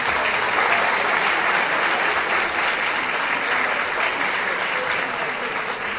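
Audience applauding: steady clapping that eases off slightly near the end.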